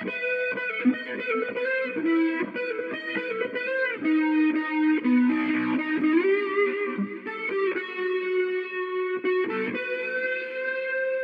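Electric guitar solo, played back from a DAW with its effects on: sustained lead notes with picked attacks and a rising bend near the middle. It runs uncompressed at first and through a compressor from about halfway, a difference that is really subtle.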